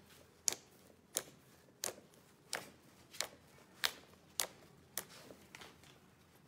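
Slime being pressed and poked by hand, giving a run of sharp clicking pops at an even pace of about one and a half a second, the last few weaker.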